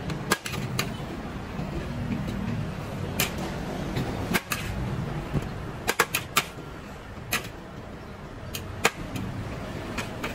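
Metal spatula clinking and scraping against a large steel wok as fried rice is scooped out and portioned onto plates: about a dozen sharp, irregular clinks over a steady low rumble.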